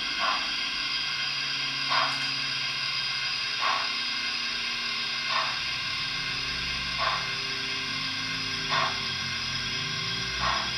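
Digital sound decoder in an OO gauge model steam locomotive playing slow, evenly spaced exhaust chuffs, about one every second and a half, over a steady steam hiss, as the model creeps along at low speed.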